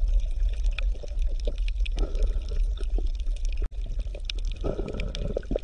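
Running, bubbling water with irregular small drips and splashes over a steady low hum.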